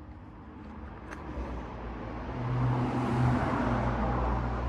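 A motor vehicle going by: its low engine hum and road noise grow steadily louder, swelling about two seconds in.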